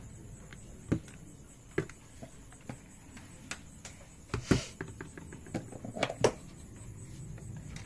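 Handling noise: a few scattered light clicks and knocks, with a louder knock and short rustle about halfway through and two more sharp knocks a little later.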